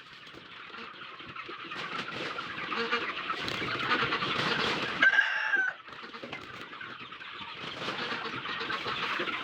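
A flock of chickens clucking and chattering all together, growing louder over the first few seconds. One louder squawk stands out about five seconds in.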